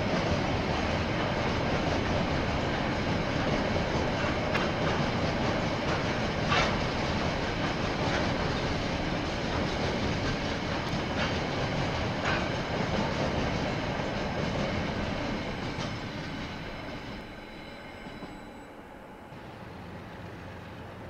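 KiwiRail freight train of container wagons rolling past: a steady rumble of wheels on rail with a few sharp clacks, fading away about seventeen seconds in as the last wagons go by.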